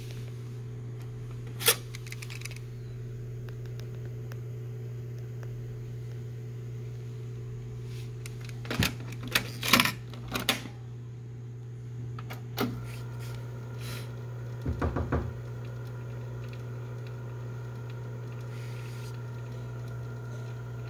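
Cassette door and mechanism of a JVC KD-V44 stereo cassette deck being handled by hand: sharp clicks and clunks as the door and cassette are worked and the door is shut, with a cluster of clicks in the middle and a quick rattle of several clicks soon after. A steady low hum runs underneath.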